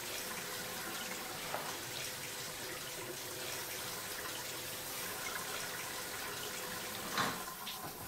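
Steady running water from a tap, an even rushing hiss that does not change, with one short knock about seven seconds in.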